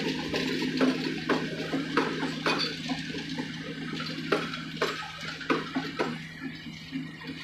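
Wheels of slow-moving railway passenger coaches clicking and clanking over rail joints and points, with irregular metallic clicks about every half second over a steady low hum.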